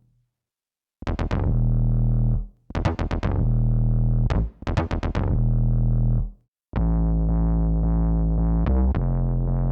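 Bass preset of the Atoms physical-modelling synthesizer playing: three short phrases of notes, each with sharp plucky attacks over a deep held tone, then from about two-thirds of the way in a continuous low bass line that changes pitch twice.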